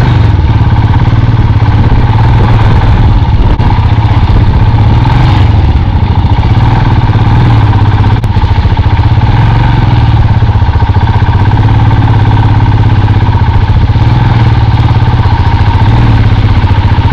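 Motorcycle engine running steadily as the bike is ridden over a rough dirt road, heard from on the bike, with the revs rising and falling a little as the rider works the throttle.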